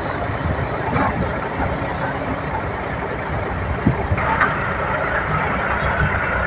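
Kobelco 380XD excavator's diesel engine running steadily under load as the machine swings and works its hydraulics, with a sharp knock about a second in and a heavier thump near four seconds. A higher whine comes in just after that.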